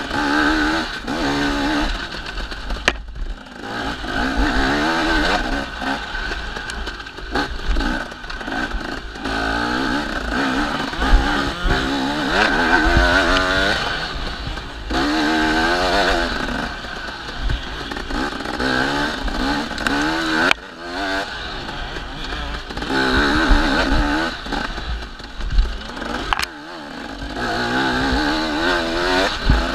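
Dirt bike engine revving hard, its pitch climbing and falling again and again as the rider accelerates, shifts and backs off the throttle on a dirt trail, heard from on the bike.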